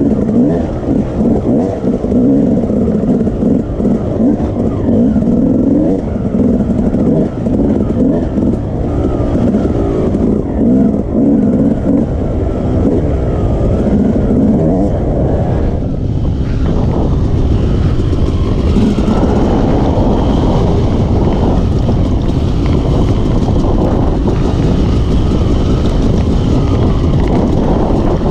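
Yamaha YZ250 two-stroke dirt bike engine being ridden hard: the throttle rises and falls repeatedly for the first half, then the engine note holds steadier.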